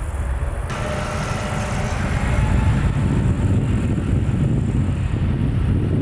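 Jet airliner engines rumbling, growing louder about two seconds in, with a faint whine above the rumble.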